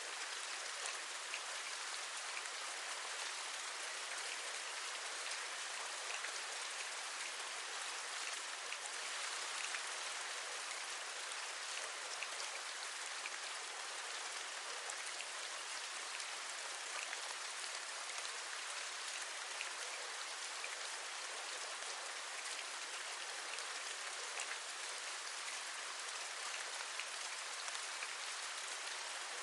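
Steady rain: an even hiss with many small drops tapping, on a window as the soundscape describes.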